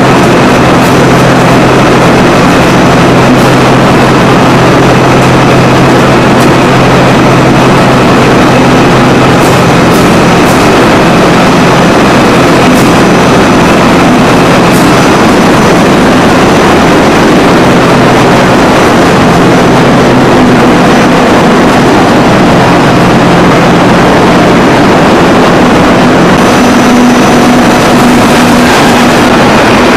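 Textile spinning-mill machinery running: a loud, steady mechanical drone with a constant low hum.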